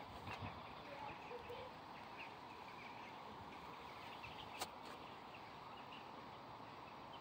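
Quiet outdoor ambience with small birds chirping faintly, and a single sharp click about four and a half seconds in.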